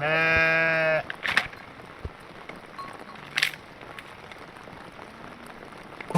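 A sheep bleats once, a steady call about a second long, followed by two short rustling noises.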